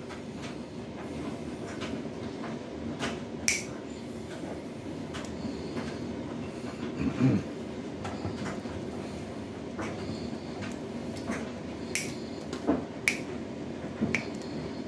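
Small hand cutters snipping through PC power-supply wires, giving irregular sharp clicks every second or so, along with the rustle of handled cable, over a steady low hum.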